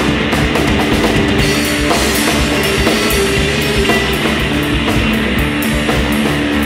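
Rock band music: drum kit and guitar playing a steady groove.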